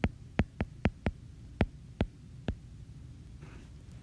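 Stylus tip tapping and clicking on a tablet's glass screen during handwriting: about eight sharp, unevenly spaced clicks in the first two and a half seconds, over a faint low hum.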